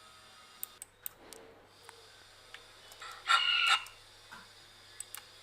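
An eagle scream sound effect played back once: a single harsh, pitched cry about half a second long, about three seconds in. Sharp mouse clicks come before and after it.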